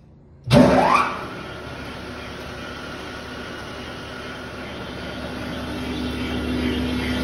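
Rebuilt Weiler 878 meat grinder running empty: its 50 HP electric motor drives the V-belts, gearbox and stainless feed screw with a steady mechanical hum. After a brief silence it comes in with a short loud rising whine, then runs steadily, growing slightly louder near the end.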